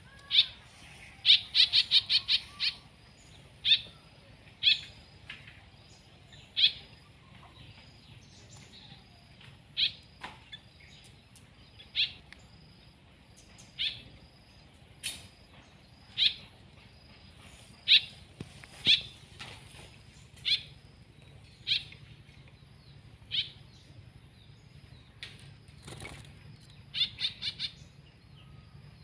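Pet songbird giving short, sharp chirps, one every second or two, with quick runs of chirps about a second in and near the end.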